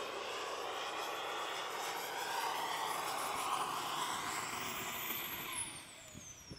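RC model turbine jet flying past, a steady jet rush with a high whine; about five seconds in the whine falls steeply in pitch and the sound drops away.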